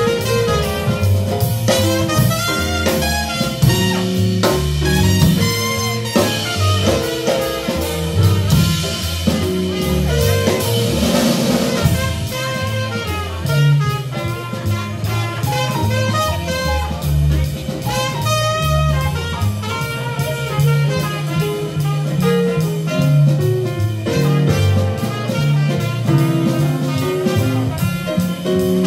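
Live jazz combo playing an instrumental horn solo over walking upright bass, piano and drum kit with ride cymbal; the cymbals swell for a few seconds in the middle.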